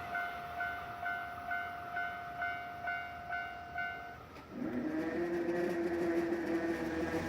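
Japanese level crossing warning bell ringing in a steady repeating ding, about two strikes a second, which stops about four seconds in. Half a second later a steady low humming tone starts and runs on.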